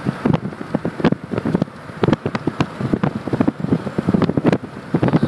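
Wind buffeting a phone's microphone during a thunderstorm: a rapid, irregular crackle of short pops and rumbles.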